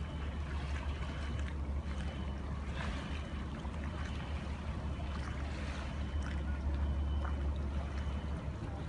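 Steady low drone of a replica tall ship's engine as it motors slowly past, with a few faint clicks over it.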